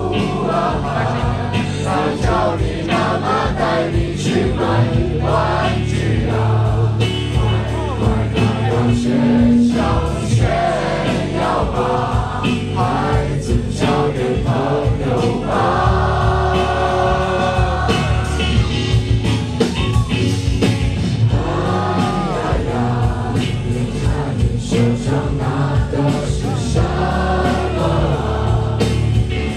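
Taiwanese indie rock band playing live with a lead singer, full band of drums, bass and guitars, sung vocals throughout, with what sounds like a choir of voices joining in.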